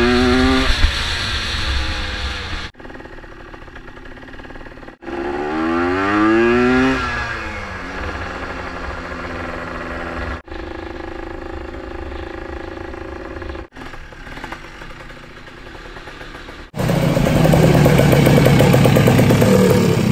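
ATV engine running under way, its revs climbing and falling twice as it accelerates and eases off. Near the end it switches abruptly to a loud, steady run close up.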